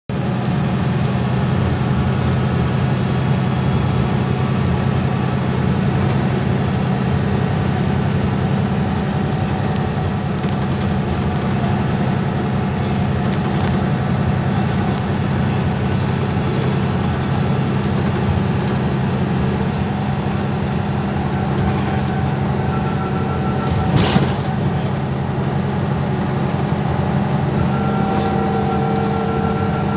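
MAN Lion's City bus driving along, heard from inside the passenger cabin: a steady low engine drone with road and tyre noise. A single sharp knock about 24 seconds in, and a faint high whine near the end.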